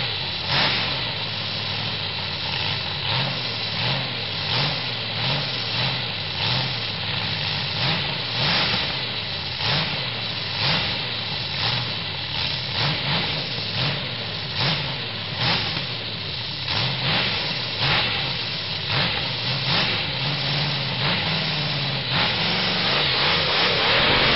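A 1962 Buick Special's 215 cubic inch all-aluminium V8 drives a competition hot saw and runs through short open exhaust stacks while it warms up, the throttle blipped about once a second. It revs up harder near the end.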